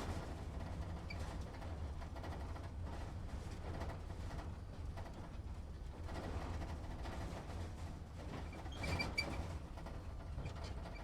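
Truck engine running low and steady, heard from inside the cab, with a deep rumble and light cabin rattle. A few short high squeaks about nine seconds in.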